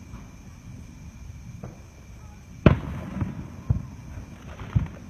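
Aerial fireworks bursting: sharp booms with a short rumble after each. The loudest comes about halfway through, followed by two smaller ones about a second apart.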